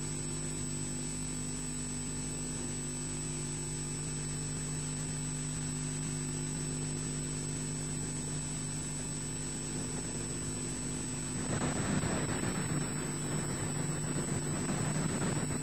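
Steady electrical hum with fixed tones from the nest camera's audio feed. About eleven seconds in, a louder, unsteady rushing noise starts over it.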